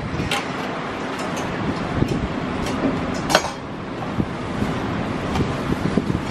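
Food-stall kitchen work over a steady background hum: metal tongs clicking against stainless-steel trays of broth, with one sharp metallic click a little past halfway. Dull knocks of a cleaver on a wooden chopping block follow near the end.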